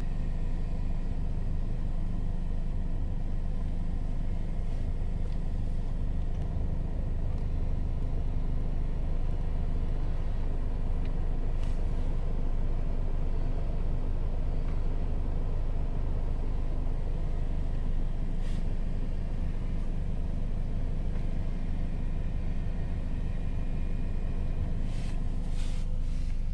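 Steady low hum of a Kia Sonet running with its AC on, heard inside the cabin, with a few faint clicks. No grinding comes from the dashboard: the AC vent direction actuator is running quietly now that it has been cleaned and lubricated.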